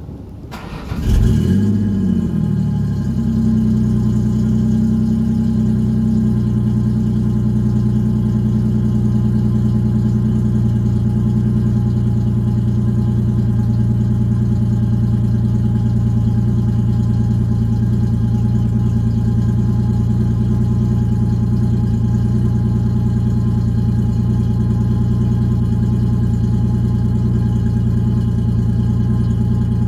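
Ford Ranger's 3.0 L V6 running on newly fitted JBA headers. About a second in the sound comes up with a brief rise and fall in revs, then the engine idles steadily through its new exhaust headers.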